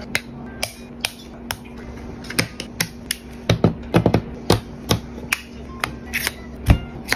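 Irregular sharp clicks and knocks of small model parts being handled, pressed and snapped together, coming faster about halfway through, over quiet background music.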